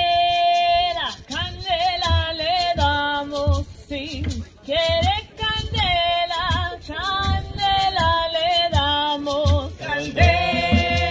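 Several women singing together in held, wavering notes, backed by occasional low hand-drum strokes that become a steady rhythm near the end.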